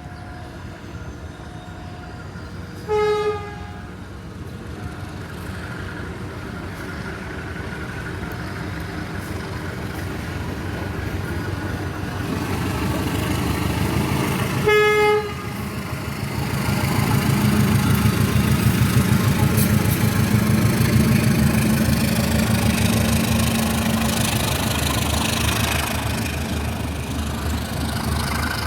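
Train horn sounding two short toots about twelve seconds apart. Between and after them the rumble of a passing train builds, loudest in the second half.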